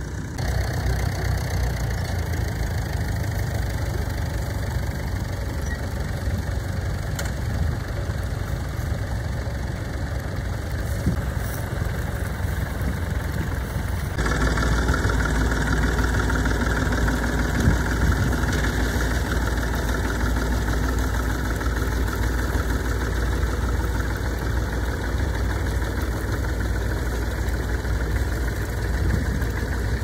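Vintage tractor engine running steadily as it pulls a mounted plough, noticeably louder from about halfway through as the tractor is close by.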